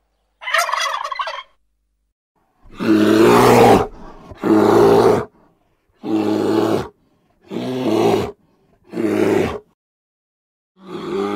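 A turkey gobbles once, briefly, about half a second in. Then a bear gives a series of deep calls, each about a second long, roughly one every one and a half seconds: five, with a sixth starting near the end.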